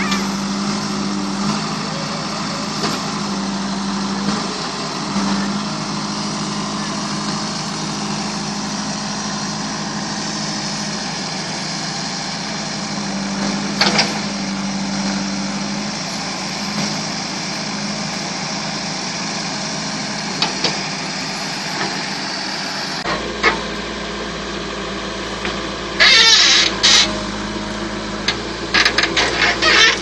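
JCB 3DX backhoe loader's diesel engine running steadily while its backhoe bucket digs, with scattered knocks and scrapes of the bucket in soil and stones and a few loud clattering bursts near the end.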